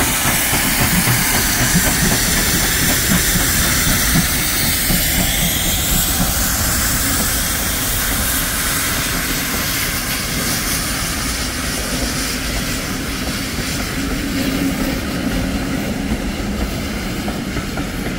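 Two steam tank locomotives, LNWR Coal Tank no.1054 leading, working a passenger train away: rapid exhaust beats with loud steam hiss at first, then the coaches' wheels clattering over the rail joints as the train rolls past.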